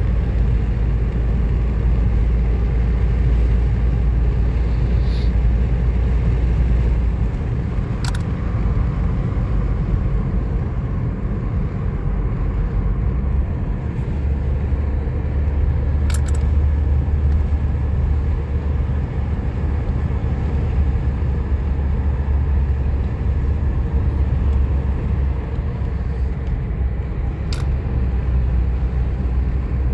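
Car driving at a steady speed: a continuous low road-and-engine rumble, with a few faint clicks.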